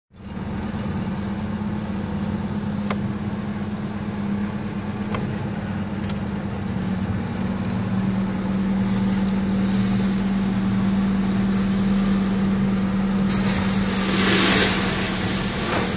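Vehicle engine running steadily, heard from inside the cabin as a constant low hum. Near the end a sea wave breaks over the seawall alongside, a loud rush of spray lasting about two seconds.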